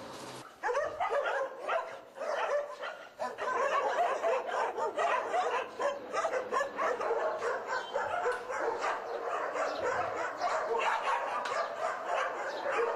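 A pack of shelter dogs barking together, many overlapping barks with no pause, starting suddenly about half a second in.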